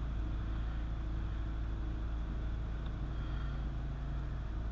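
Steady low hum under a faint background hiss, with no distinct events.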